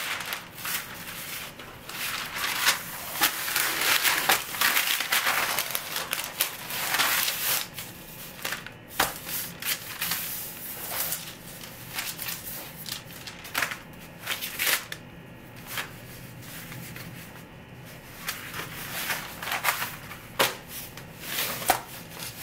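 Parchment paper rustling and crinkling as it is handled and spread out on the counter, with dough being moved and laid on it. The rustling comes in bursts, busiest in the first several seconds and again near the end, quieter in between.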